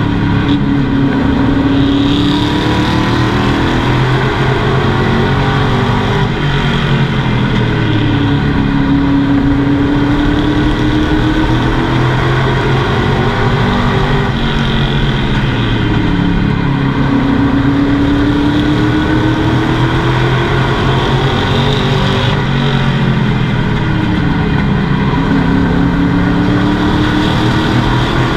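Race truck's engine heard from inside the cab at racing speed, its note climbing and falling about every seven or eight seconds as the driver accelerates and lifts off.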